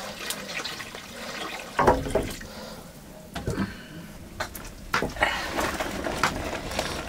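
Water pouring from a metal jug into a steel wok, followed by a few sharp knocks and clatters, the loudest about two seconds in.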